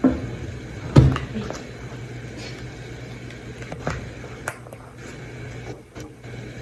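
Cookware being handled at the stove: a spatula and pot knocking sharply twice near the start, then a few lighter clicks, over a steady low hum.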